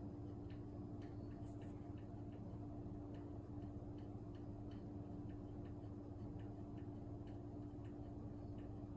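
Faint regular ticking, about two to three ticks a second, over a steady low hum.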